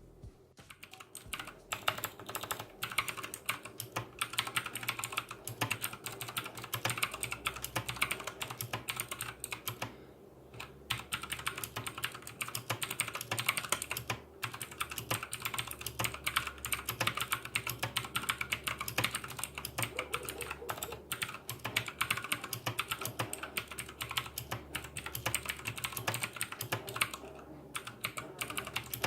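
Fast typing on a Tecware Phantom TKL mechanical keyboard with clicky Outemu Blue switches: a dense run of key clicks, broken by a few brief pauses.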